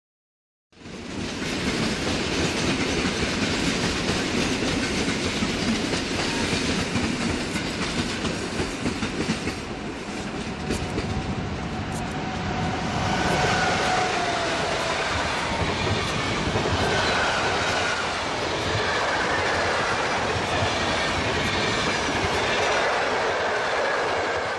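PKP Intercity EU44 Husarz electric locomotive and its passenger carriages passing at speed, a loud continuous rumble and clatter of wheels on rail. It cuts in abruptly about a second in, with a faint high whine for a few seconds around the middle.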